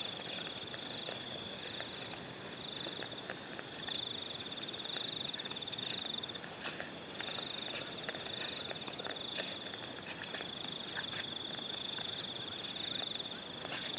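Night insects, crickets or similar, trilling steadily at one high pitch in long phrases broken by short gaps, with faint scattered clicks underneath.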